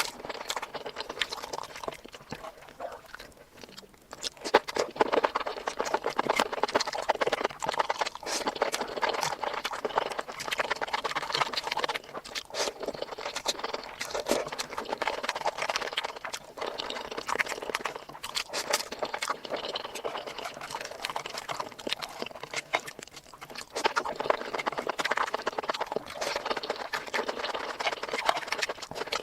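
Close-miked ASMR eating: a continuous run of wet chewing and lip-smacking clicks, quieter for the first few seconds, then steady.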